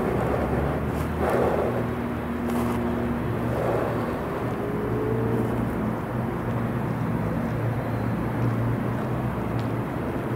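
Steady low engine hum in open air, like a motor vehicle running, over a constant outdoor background noise, with a few faint knocks.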